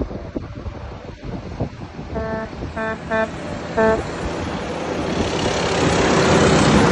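A truck horn honks four times in quick succession: one longer blast, then three short toots. A passing truck then rushes by, its road noise swelling louder toward the end.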